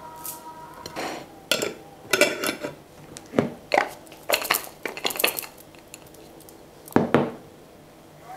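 Glass jar being handled: its twist-off lid put on and screwed shut, with pieces of homemade white chocolate clattering against the glass inside. Two sharper knocks come about seven seconds in as the jar is set down.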